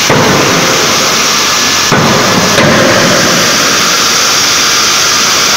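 CNC hydraulic die forging hammer striking hot metal in its die: one blow at the start and two more about two and two and a half seconds in, each a sharp impact. A loud, steady machinery hiss runs underneath.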